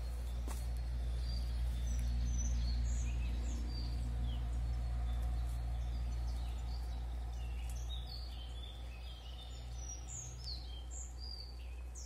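Several small birds chirping and calling in a forest: many short, high notes scattered throughout, over a steady low rumble.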